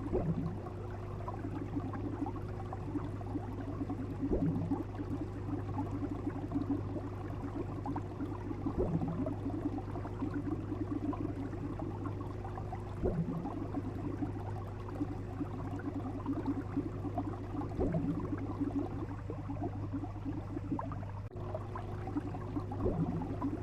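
Bubbling water with a steady low hum underneath. A soft gulping pop recurs about every four and a half seconds.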